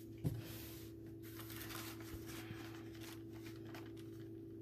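Cat rubbing its face against a clear plastic clamshell strawberry container, the thin plastic crinkling and rustling in irregular bursts. A low thump about a third of a second in, over a steady low hum.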